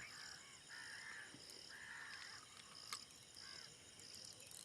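Faint dawn chorus: birds give short calls again and again over a steady high chirping of insects. A single soft click comes about three seconds in.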